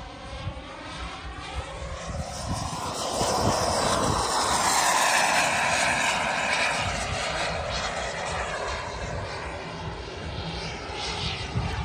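JetCat 180 turbine of a large-scale L-39 Albatros model jet flying past. The rushing turbine sound swells to its loudest about four to six seconds in, then fades as the jet moves away.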